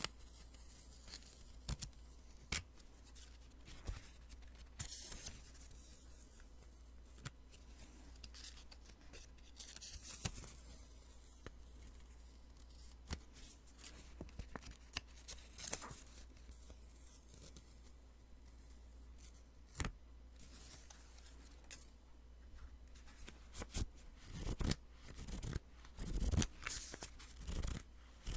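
Post-it sticky notes being peeled off and handled close to a binaural microphone: short papery swishes and scattered sticky crackles and clicks, coming thicker and louder near the end.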